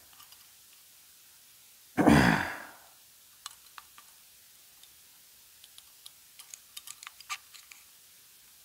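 A man's loud sigh about two seconds in, then a run of small, irregular clicks and ticks as an automotive boost gauge is worked on and pried apart by hand.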